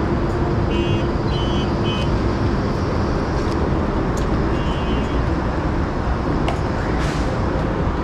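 Steady rumble of road traffic, heaviest in the bass. Short high chirps come in small groups about a second in, around two seconds in and again around five seconds in.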